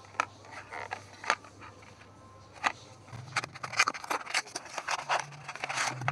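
Small cardboard toy box handled and opened by hand: a few sharp taps and clicks, then from about three seconds in a busy run of scraping and crinkling as the top flap is opened and a card is slid out.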